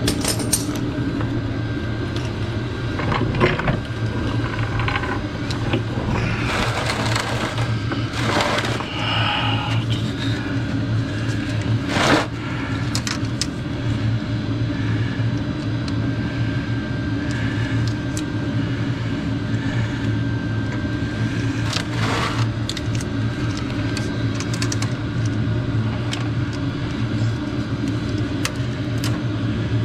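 Steady low mechanical hum throughout, with occasional clicks and scrapes of hand tools on metal fittings as hoses and clamps are worked on under the truck.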